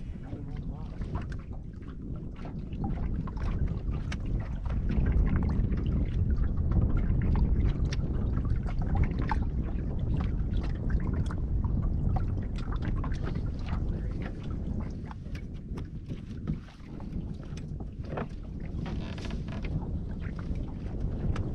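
Boat under way on the lake: a steady low rumble of the boat and water, with wind buffeting the microphone and scattered sharp crackles. The rumble swells for several seconds in the first half.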